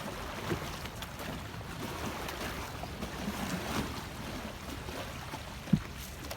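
Water lapping and splashing around a coracle on the river, with one sharp knock near the end.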